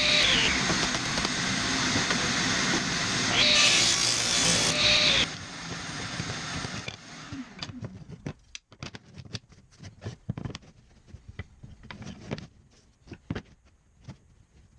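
Table saw running and ripping a thin hardwood strip; the sound brightens and grows louder while the blade is in the wood, about 3.5 to 5 s in. The saw noise cuts off about 5 s in. After that come scattered light clicks and knocks of wooden strips being handled and laid on the bench.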